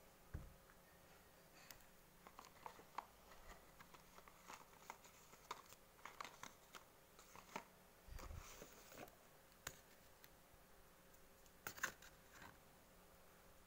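Quiet handling of paper and small objects: scattered light clicks and taps with brief paper rustles, and a longer rustle a little past the middle.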